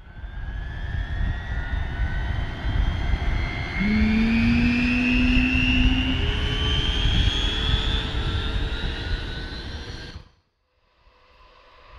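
Jet airliner engines running, a low rumble under several whining tones that slowly rise in pitch. The sound cuts off abruptly about ten seconds in, and after a short silence a quieter, more distant engine sound fades in.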